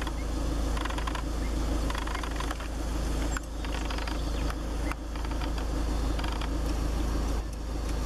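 A steady low rumble with scattered clicks and creaks from a handheld camera being moved and handled.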